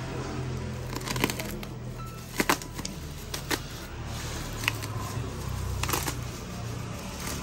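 Plastic bubble wrap crinkling and crackling as it is handled and cut open with a utility knife, with a handful of sharp clicks spread through it.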